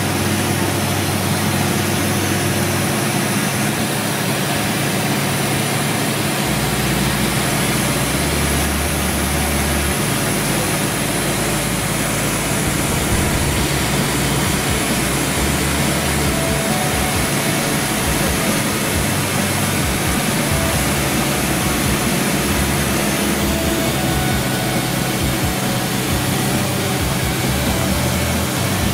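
Cessna 172 Skyhawk's piston engine and propeller running steadily in flight, heard inside the cabin as a loud, even drone: a steady low hum with a hiss of air over it.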